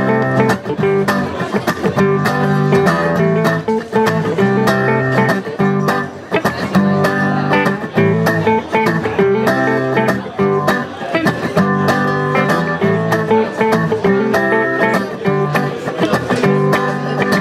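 Live band's instrumental intro on two guitars, strummed in a steady rhythm with changing notes, without singing.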